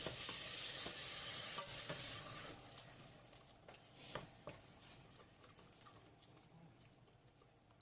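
Food sizzling in hot oil in a pan. The hiss dies away over the first three seconds, leaving a few light scattered clicks and taps.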